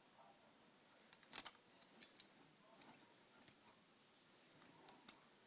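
A few sharp metallic clicks and clacks from butterfly knife handles and latch being handled, the loudest about a second and a half in, two more around two seconds and one near the end.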